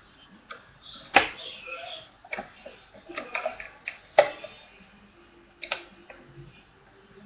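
Irregular clicks and taps of a hook working rubber loom bands on a plastic loom, with a few sharper snaps, the loudest about a second in and about four seconds in.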